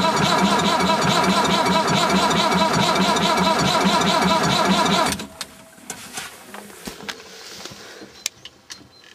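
Massey Ferguson 590 Turbo tractor's diesel engine running after a cold start, heard from inside the cab with a steady pulsing beat. About five seconds in the engine stops suddenly, leaving only faint clicks and knocks.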